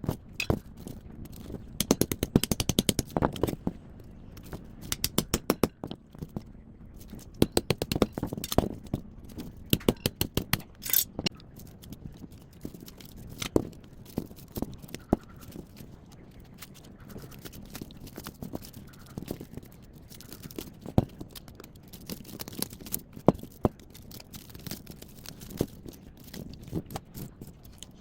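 Tools taking apart a top-loading washing machine: short bursts of rapid metallic rattling for the first ten seconds or so, then scattered single knocks and scrapes.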